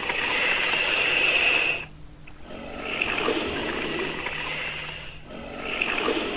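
Long, raspy hisses, made as sound effects for a fictional monitor lizard: three drawn-out hisses of about two seconds each with short breaks between, the first the loudest.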